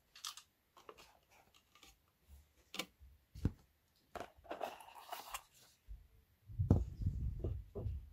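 Handling noises as a subwoofer cone and its dust cap are worked on: scattered clicks and taps, a scraping rustle about four seconds in, then low bumps and rumbling near the end.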